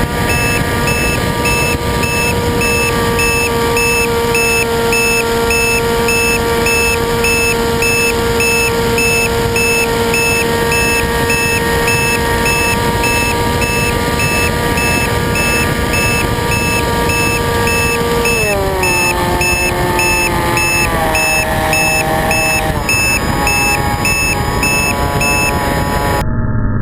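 RC plane motor and propeller running at a steady high whine over rushing air noise. The pitch then drops in steps a few seconds before the end as the throttle is eased back.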